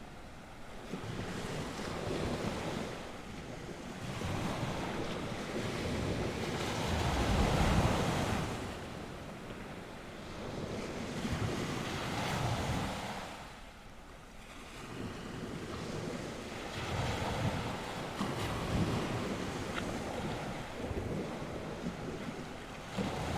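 Sea waves washing onto the shore, swelling and receding in slow surges every few seconds, with wind buffeting the microphone.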